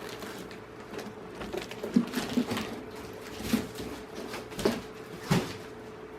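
Cardboard box and packaging being handled: light rustling with a few short knocks and taps.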